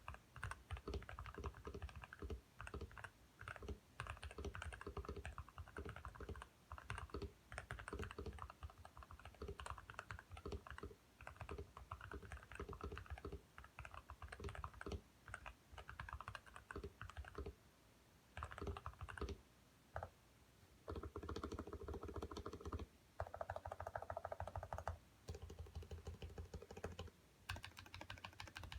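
Typing on a computer keyboard: quick runs of hard key clacks in bursts with short pauses, a keyboard sound likened to marble.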